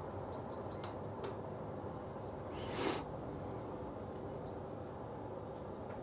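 Steady outdoor background hiss with a few faint, high, short bird chirps, broken near the middle by one brief, loud hissing whoosh.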